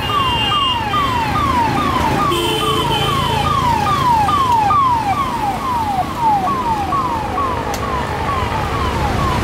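Electronic siren on a passing road vehicle: a falling tone repeated a little over twice a second, growing louder toward the middle and fading near the end, over the low rumble of road traffic.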